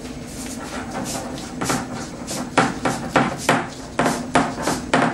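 Foam pipe-insulation grip being twisted and pushed along gray PVC electrical conduit, giving a run of short, sharp, irregular knocks and rubs that come about two or three a second from about a second and a half in.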